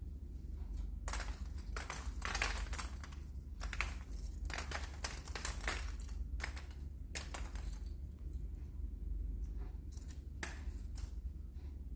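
Foam crumbling and falling in a run of irregular crackling rustles, some short and some about a second long, busiest from about a second in to past the middle, with a few more near the end. A steady low hum lies underneath.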